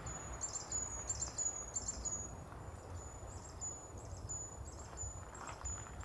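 A small songbird calling in the forest: a long run of high, thin chirps repeated about three times a second, over a low, steady background rumble.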